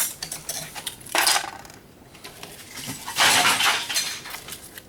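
Small metal parts from a dismantled can opener clinking and rattling as they are handled and dropped. There are sharp clicks at first, a short rattle after about a second, and a longer, louder rattle about three seconds in.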